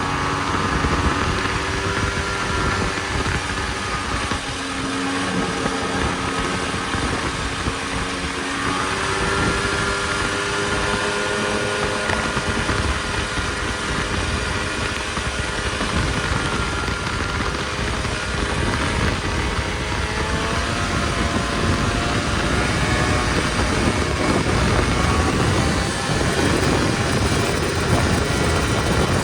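Snowmobile engine running while under way, its pitch rising and falling with the throttle over a steady noisy rush.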